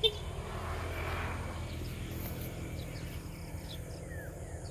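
Outdoor field ambience: a sharp click right at the start, a swell of noise over the first two seconds, and a few faint, short bird chirps near the end over a steady low rumble.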